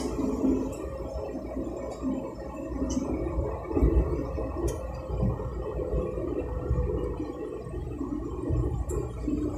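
Road and engine noise inside a moving car's cabin: a steady low rumble, with a few faint ticks.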